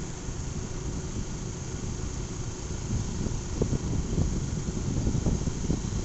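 Riding noise from a moving motorbike: low engine and road rumble with wind buffeting the phone's microphone, the buffeting getting stronger about halfway through.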